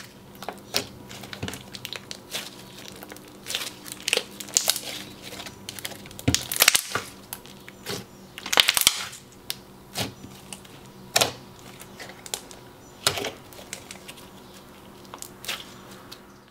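Hands squeezing and kneading a thick, holdable clear-based metallic slime, making irregular wet clicks and crackling pops, with a louder pop every second or two.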